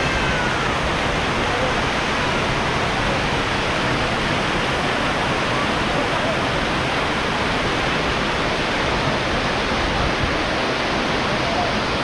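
Steady rush of falling water from the Benang Kelambu waterfall, many thin curtains of spring water pouring down a vine-covered cliff into a shallow rocky pool.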